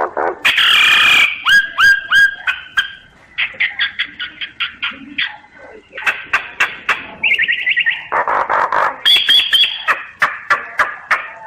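Myna singing a varied, rapid song of sharp clicks, chirps and short whistled notes, broken by a harsh, noisy squawk about half a second in and again near two-thirds of the way through.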